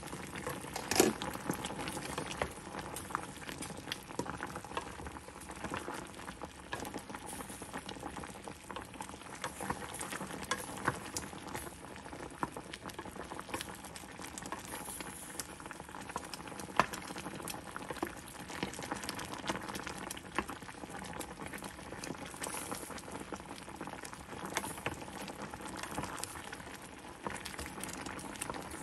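Brown sugar and water syrup boiling hard around plantain slices in a stainless steel pot, a steady dense crackle and bubbling. A wooden spoon stirs through it, with a few sharp knocks.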